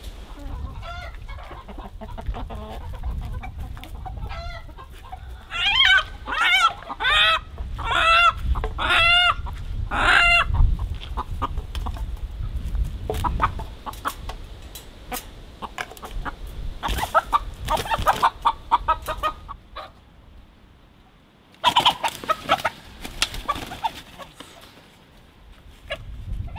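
Chickens, young roosters among them, squawking and clucking in alarm as they are chased and caught with a net: a run of about six loud squawks in quick succession, then further bursts of calls later, over a low rumble of wind.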